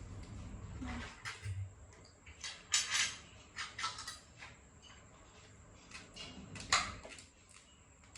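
Eating sounds at a meal of sausages and potatoes: scattered short clicks and taps of utensils and dishes, with the loudest about three and seven seconds in.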